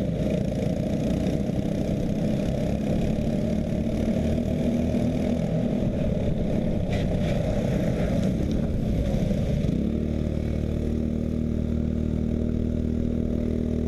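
Briggs & Stratton LO206 four-stroke single-cylinder kart engine running, rough and noisy at first, then settling into a steady idle about ten seconds in.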